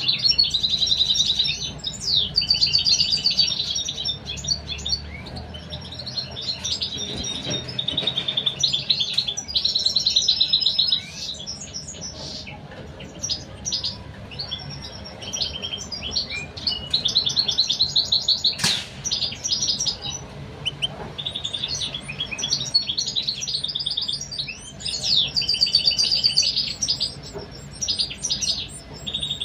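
Goldfinches chirping: rapid series of high, thin chirps in bursts of one to three seconds, broken by short pauses, with one sharp tick a little past the middle.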